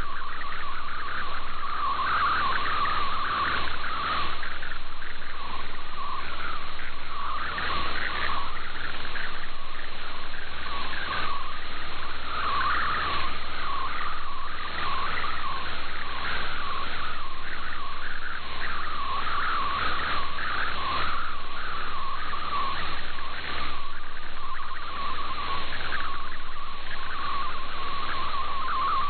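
Shortwave MFSK digital-mode signal carrying an image: a fast, steady warble of hopping tones over a constant hiss of band noise, the sound of picture data being received and decoded.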